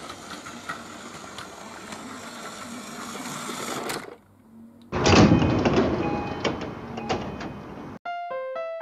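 Battery-powered Plarail toy train running on plastic track: the motor and gearbox whirring, with the wheels rattling over the track joints, getting slightly louder until it stops about four seconds in. A second, louder run of whirring and clicking follows about a second later, and piano music starts near the end.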